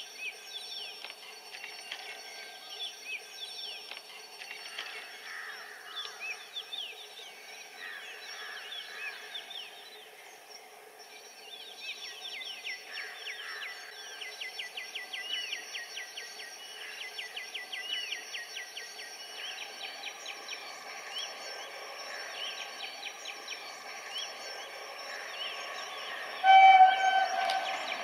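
High, rapid chirping and trilling at the trackside, then near the end one short blast, about a second long, of an approaching WAP-7 electric locomotive's horn. After the blast, the train's running noise starts to build.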